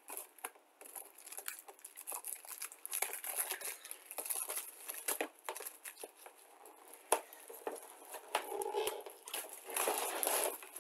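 Plastic shrink-wrap crinkling and tearing as it is peeled off a cardboard model-kit box, in irregular crackles that get loudest near the end.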